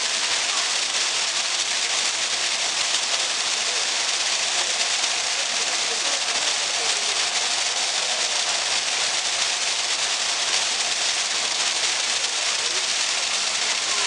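Water falling in a thin column from a height and splashing steadily into a shallow pool, giving a dense, even hiss like heavy rain.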